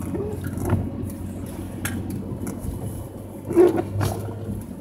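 Car cabin noise while driving on a wet road: steady engine and tyre noise, with a windshield wiper sweeping across the glass near the start. A few short knocks come through, the loudest about three and a half seconds in.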